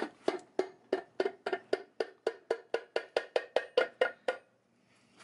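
Rubber mallet tapping rapidly and evenly on the rear gear cover of a Winters quick-change differential, about five blows a second, stopping about four seconds in. The taps are knocking the tight cover loose from the housing.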